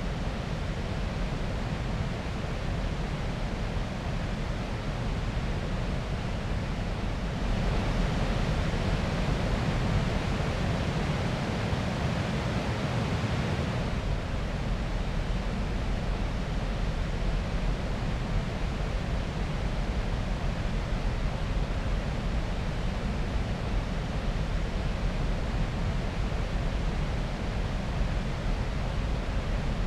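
Steady rushing noise of moving water, swelling louder for about six seconds a quarter of the way in, then settling back.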